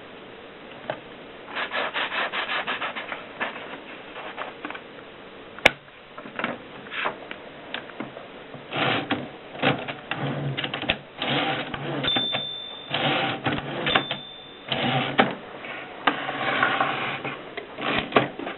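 Mercedes Selekta typewriter being typed on: fast runs of key strikes clacking against the platen, broken by short pauses, with one sharper, louder strike about six seconds in. Twice, a short high steady tone sounds in the middle of the typing.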